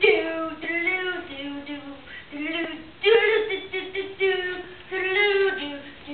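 A child singing in a high voice, a run of held notes that rise and fall.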